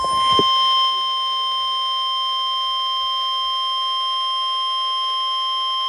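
NOAA Weather Radio's 1050 Hz warning alarm tone: one steady, unbroken electronic tone announcing that a warning message follows.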